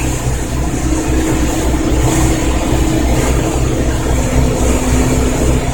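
Motorboat engine running steadily under way, a low droning rumble with a steady rushing noise over it.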